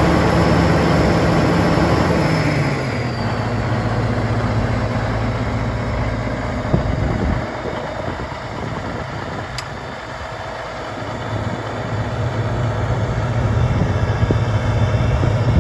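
Ford Versatile 976 4WD tractor's diesel engine running, dropping in pitch as it slows to idle about three seconds in, then idling steadily. A single sharp click about seven seconds in.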